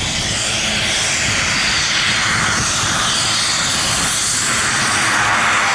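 Cessna 208B Grand Caravan's Pratt & Whitney PT6A turboprop running as the plane taxis across grass, with a steady high whine over the propeller noise. It grows slightly louder as the plane comes closer.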